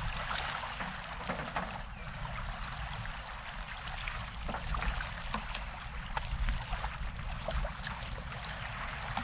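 Small waves lapping and splashing against a plastic kayak's hull in shallow water, with many scattered little splashes, over a steady low rumble of wind on the microphone.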